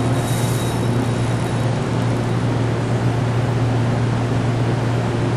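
Steady low drone of a ship's machinery, with a wide even hiss over it that holds unchanged throughout.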